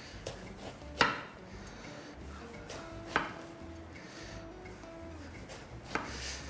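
Kitchen knife slicing through an aubergine and knocking on a wooden cutting board: three sharp chops, two to three seconds apart, over faint background music.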